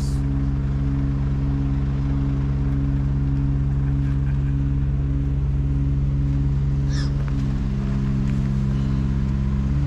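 An engine running steadily at idle, an even low hum that doesn't change. A single short bird call sounds about seven seconds in.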